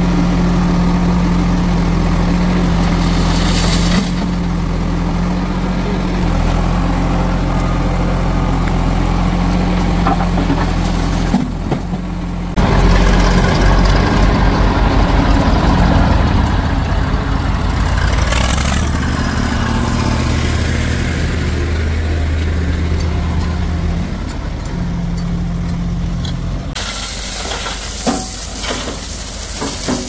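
Diesel engines of a JCB 3DX backhoe loader and farm tractors running steadily, the engine note changing abruptly several times. A few short knocks near the end.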